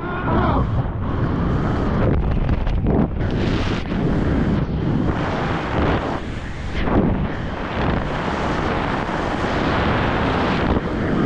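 Freefall wind rushing over a skydiver's camera microphone: a loud, buffeting rush that swells and dips irregularly.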